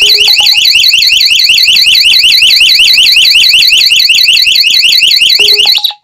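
Electronic alarm siren of a Sonoff-controlled home alarm, set off by its motion sensor, sounding loudly in a fast warble that sweeps up and down about eight times a second. It cuts off suddenly near the end as the alarm is switched off.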